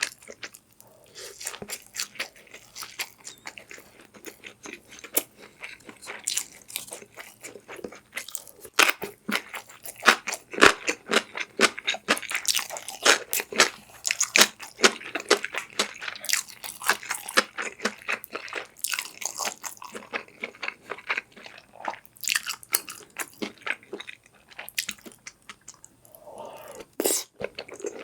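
Close-miked eating: a person biting and chewing crunchy food, with a dense run of sharp crunches throughout.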